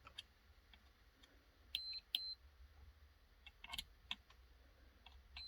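Multimeter on continuity test giving two short high beeps about two seconds in, amid light clicks of the probe tips touching the wire ends. A beep starts again at the end. The beep signals an unbroken circuit through the stretch of speaker cable being probed.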